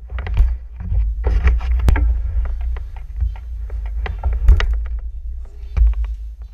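Handling noise from an action camera being carried and moved by hand: a low rumble of rubbing on the microphone with many sharp clicks and knocks, cutting off suddenly near the end.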